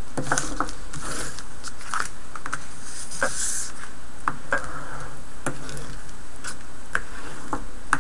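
A bone folder rubbing and tapping on cardstock and double-sided score tape over a cutting mat, pressing the tape down. Scattered light taps and clicks, with a brief scrape about three seconds in.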